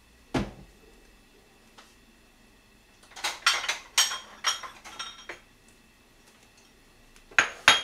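Kitchenware clinking and clattering as dishes and utensils are handled: a single knock about half a second in, a run of clinks in the middle, and two sharp clinks near the end.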